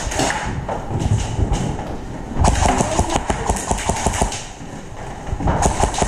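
Airsoft guns firing in rapid bursts of sharp clicks, with the longest burst starting about two and a half seconds in and lasting about two seconds, and short bursts at the start and near the end.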